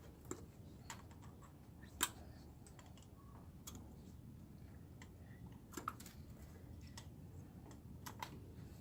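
Faint, irregular small clicks and ticks of metal parts and hand tools being handled while stripping scrap, with one sharper click about two seconds in.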